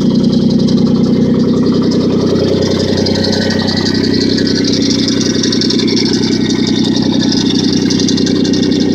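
A 1998 Audi A4 B5 quattro's engine idling steadily, its tone shifting slightly about four seconds in.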